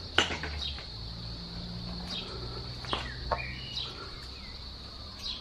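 Outdoor ambience: a steady high-pitched insect drone with a few short bird chirps, over a low steady hum. A few sharp knocks from handling cut in, the loudest just after the start.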